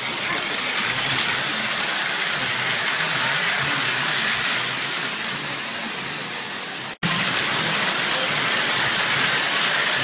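Steady rushing noise of O-gauge model trains running on three-rail track, mixed with the hubbub of a busy exhibition hall. The sound cuts out for an instant about seven seconds in.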